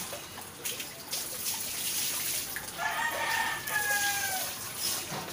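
A rooster crows once, a falling call of about a second, roughly three seconds in, over the splashing and dripping of water as a small dog is washed.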